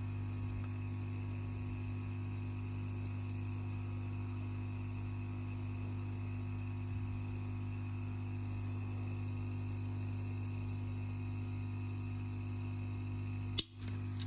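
Steady low hum, then near the end a single sharp snap as the heated bimetallic strip of a 150 A resettable DC circuit breaker flips and breaks the contact.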